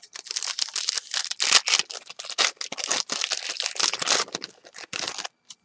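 A baseball card pack's wrapper being torn open and crinkled: a dense, loud run of crackling that stops about five seconds in.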